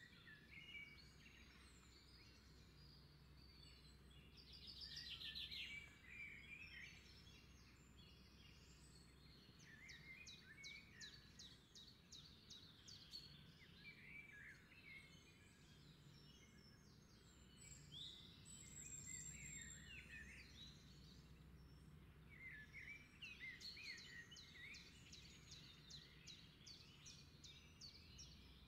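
Faint birds chirping and trilling in several bouts over a low, steady background hum.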